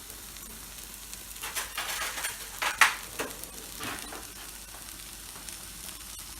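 Onions, garlic and ginger frying in hot oil in a pan, a steady sizzle. A few clatters and one sharp clack come in the middle.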